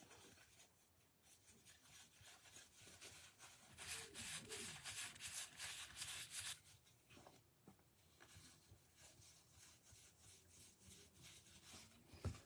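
Faint rustle of 2022 Heritage High baseball cards sliding against one another as a stack is thumbed through, busiest for a couple of seconds in the middle, with a light tick near the end.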